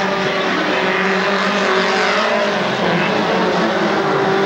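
Engines of several off-road race trucks running hard together as a pack races past on a dirt track, their overlapping engine notes continuous and loud.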